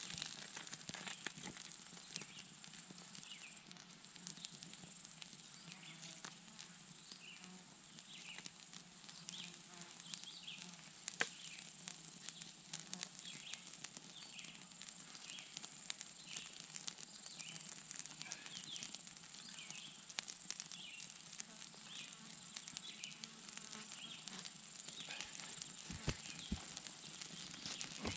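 Insects in summer grass: a steady high trill and a low buzz like flies, with short chirps repeating about once a second. Small crackles and snaps come from a twig campfire being fed.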